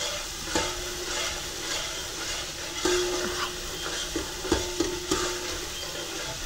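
A metal ladle stirs and scrapes medium-browned onions sizzling in oil in a large stainless-steel pot. The ladle knocks against the pot a couple of times, and there are brief ringing metal scrapes in the middle.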